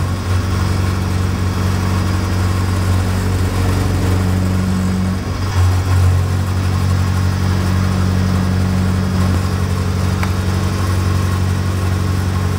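Milling machine spindle running with an end mill taking a light cut along the edge of a metal faceplate that the fourth axis turns slowly. It makes a steady, even machine hum.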